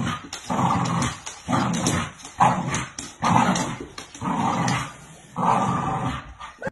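Bull terrier growling in a run of repeated bursts, about one a second, while tugging a suction-cup rope toy.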